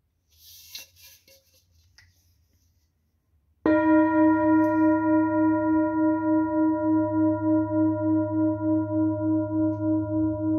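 Large hand-beaten singing bowl, resting on an open palm, struck once with a mallet about three and a half seconds in and then ringing on with a deep hum and several higher overtones, the tone pulsing in a steady wobble as it slowly fades. Light handling rustle comes before the strike.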